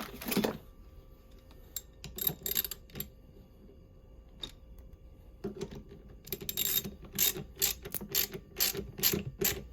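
Ratchet wrench clicking in short runs of strokes, tightening the bus bar nuts down onto the prismatic LiFePO4 cell terminals. A few strokes come about two seconds in, then a faster run of about two to three strokes a second from about halfway.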